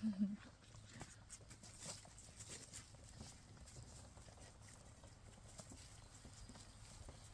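A goat kid gives a short bleat at the very start, then faint scattered clicks and knocks over a low steady hum.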